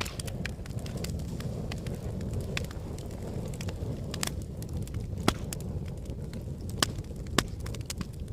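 Wood fire burning in a fireplace: a steady low rumble of flames with frequent crackles and sharper pops from the logs, three louder snaps in the second half.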